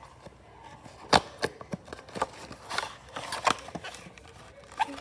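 A series of irregular sharp clicks and knocks, about eight in a few seconds, the loudest about a second in.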